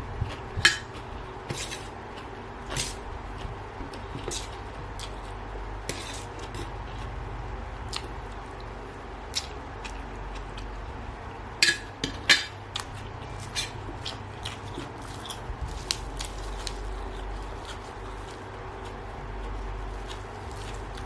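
Scattered clinks and taps of cutlery against a dish during eating, with two sharper clinks about two-thirds of the way through, over a steady low hum.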